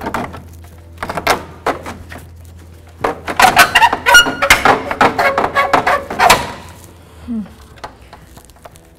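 Plastic radiator cooling-fan shroud and fan assembly clunking and rattling as it is worked up and out of the engine bay. The knocks are scattered at first, then come as a dense, loud run of clunks and scrapes from about three to six seconds in.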